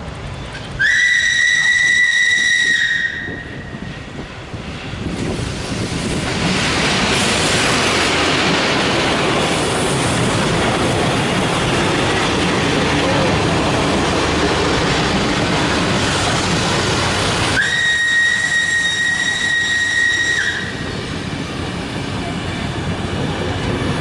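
Steam locomotive whistle blowing a long blast about a second in, then the train running past close by with a loud, steady rush of wheels on the track. A second long whistle blast sounds near the end as the coaches go by.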